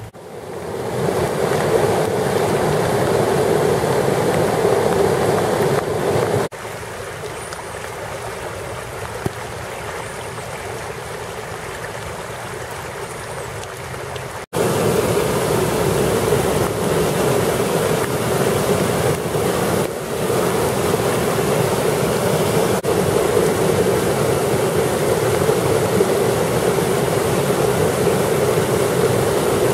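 Rushing floodwater: a swollen woodland stream running fast and spilling over a small ledge. It is a steady, loud rush that drops in level about six seconds in and comes back louder about halfway through.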